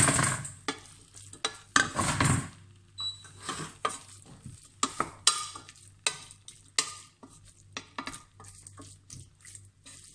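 Wooden spatula stirring chicken and diced potatoes in a stainless steel pot, with repeated scrapes and knocks against the pot, loudest near the start and around two seconds in, over a light sizzle from the cooking filling.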